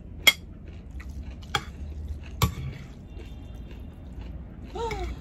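Serving utensils (a metal ladle, then chopsticks) clicking and knocking against bowls as noodles are dished out, with a few sharp knocks, the loudest just after the start. A short hum from a voice near the end.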